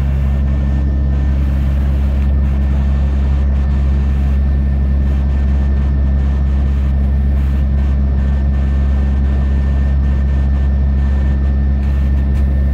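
Parked emergency vehicle's diesel engine idling: a loud, steady low drone with a faint steady high whine above it.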